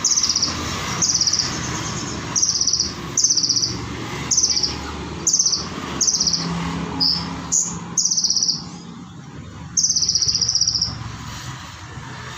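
Konin (kolibri ninja) sunbird singing a rapid series of short, high-pitched trilled calls, roughly one a second, the last one longer, ending about eleven seconds in.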